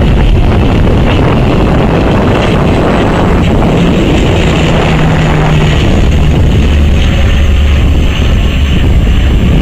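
De Havilland Canada Dash 8-100 (Q-100) twin-turboprop airliner passing overhead in a climb: a loud, steady propeller and engine drone with a low hum underneath.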